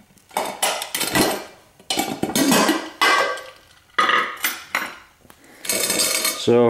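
Metal steamer pot and its locking lid clanking and rattling as they are handled, a string of sharp clatters about once a second.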